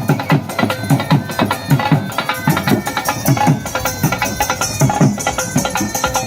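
Music led by a hand drum playing a fast, busy rhythm, its low strokes sliding down in pitch, with sharper slaps over them.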